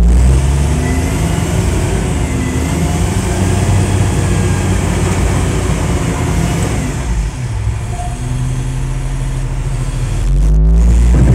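Heavy diesel engines working hard under load as a crawler dozer tows a loaded 6x6 concrete mixer truck out of deep mud. The revs rise and fall, and the sound grows louder near the end.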